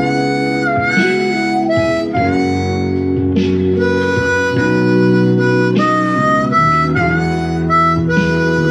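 Blues harmonica playing long held notes, some slightly bent, over a bluesy soul guitar backing track in B.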